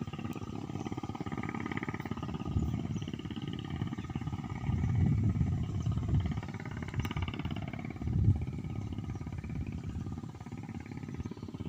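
Wind buffeting the microphone: a rough low rumble that swells in stronger gusts about five and eight seconds in.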